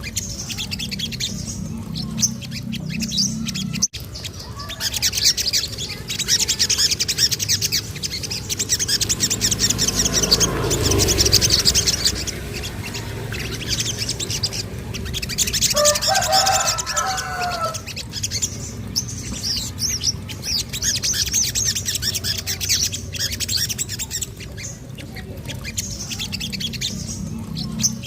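Sogon (sogok ontong spiderhunter) song: long runs of fast, high-pitched chattering trills, with a short lower warbling phrase about two-thirds of the way through.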